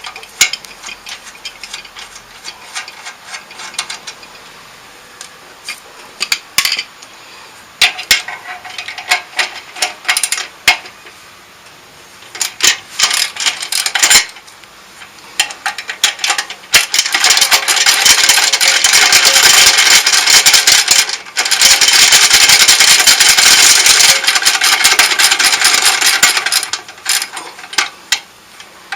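Ratchet wrench clicking as the motorcycle muffler's mounting bolts are loosened: scattered clicks at first, then about ten seconds of fast, continuous ratcheting in two long runs with a brief break between them.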